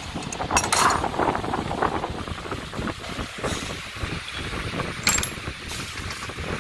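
A few light metal clicks and clinks as a bicycle clamp lever is handled and fitted onto its bolt on the frame, over a steady low rumble of workshop background noise.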